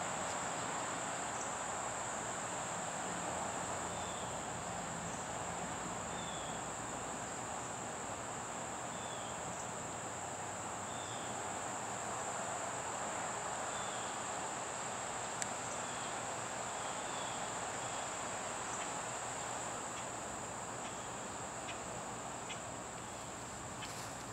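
Insects trilling steadily at a high pitch over a steady hiss of background noise, with a faint short chirp repeating every second or two and a few light clicks near the end.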